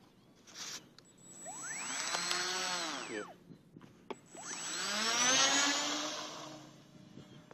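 Small electric motor and propeller of a scratch-built park-flyer RC plane whining up in pitch and back down, twice. The second run-up is higher and longer and carries the plane into its takeoff roll across the grass.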